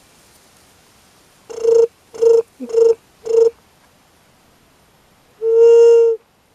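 A juriti dove call: four short, low hoots about half a second apart, then one longer hoot about two seconds later, all on the same steady pitch.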